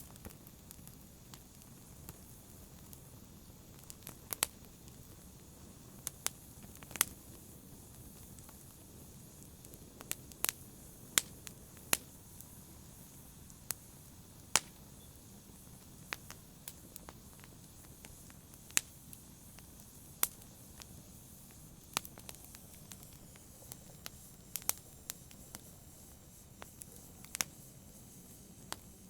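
Wood fire burning: a steady low hiss under irregular sharp crackles and pops, a few of them loud.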